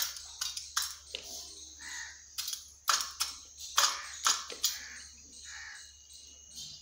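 Indian peafowl's beak pecking into a small steel bowl, giving a string of sharp, irregular metallic clicks, about a dozen, with the loudest clustered around the middle.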